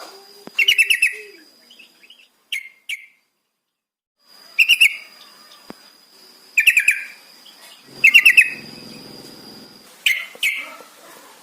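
Yellow-vented bulbul calling: about five short, bubbly bursts of rapid liquid notes, each under a second, a second or two apart. A thin steady high tone runs behind most of it.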